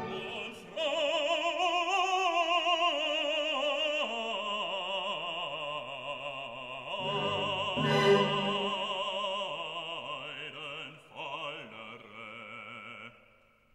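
Classical music: an operatic voice singing long held notes with wide vibrato, the sound dying away near the end.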